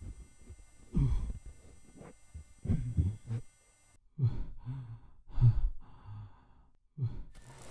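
A person's deep sighs and heavy breaths, one after another about once a second, each falling in pitch.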